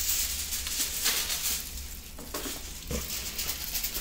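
Chorizo sausages sizzling and crackling on a grill grate over the fire, with a steady low hum underneath and a soft knock about three seconds in.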